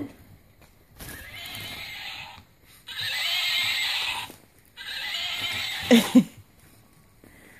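Wrapping paper rustling and tearing in three bursts of about a second each as a Shih Tzu puppy rips into a present, then two short, loud pitched sounds close together near the end.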